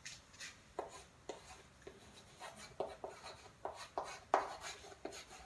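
A stick of chalk writing on a chalkboard: a quick, irregular run of short taps and scrapes, one for each stroke of the letters, the loudest a little over four seconds in.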